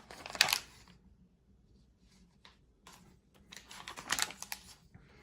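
Paper pages of a thick instruction booklet being turned and flipped: a short rustle about half a second in, then a quiet gap, then a run of rustling page turns near the end.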